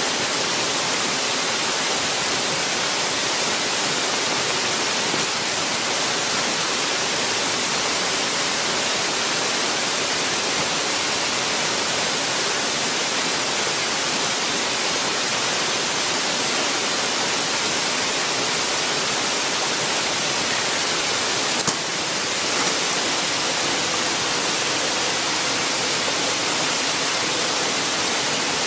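Waterfall pouring into its pool: a steady, unbroken rush of falling water.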